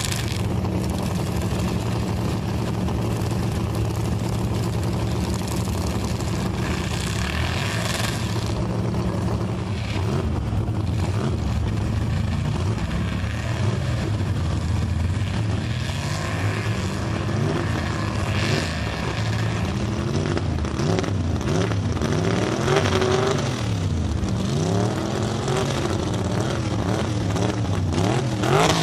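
Engine of a lifted 1940s Chevrolet mega truck on huge tires, driving through a mud bog. It runs steadily at first, then revs up and down repeatedly through the second half.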